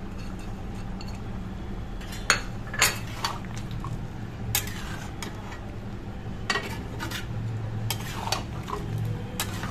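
Flat metal spatula clinking and scraping against a metal kadai as egg pieces are stirred into a simmering potato gravy: a string of sharp knocks and short scrapes starting about two seconds in, over a steady low hum.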